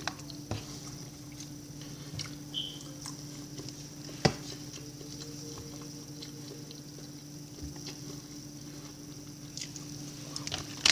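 Quiet kitchen handling: scattered light clicks and taps over a steady low electrical hum, with one sharper click about four seconds in.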